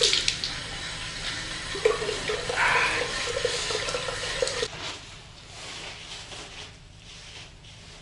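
Water running from a tap into a washbasin while someone washes at it; the flow is shut off about two-thirds of the way through.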